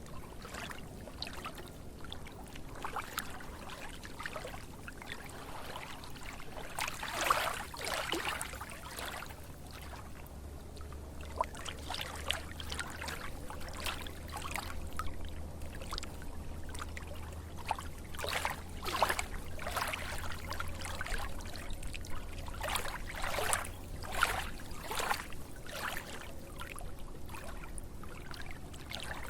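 Water trickling and splashing, with irregular louder splashes scattered throughout, the biggest about seven seconds in.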